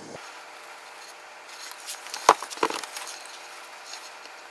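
Two light knocks, a third of a second apart, a little over two seconds in, over faint hiss, as the plastic-held 18650 battery pack is handled on a wooden workbench.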